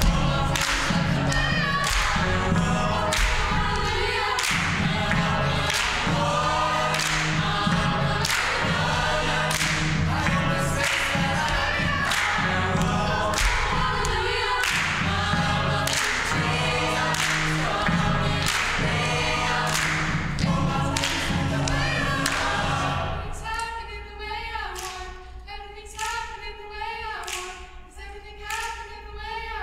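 Mixed chamber choir singing an upbeat song in close harmony over a steady clapped beat. About 23 seconds in, the low voices drop out and the sound thins to lighter, higher voices while the beat continues more softly.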